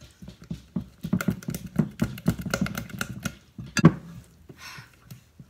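Pancake batter being stirred briskly in a bowl, the utensil clicking rapidly against the bowl's sides, with one louder knock about four seconds in, after which the stirring eases off.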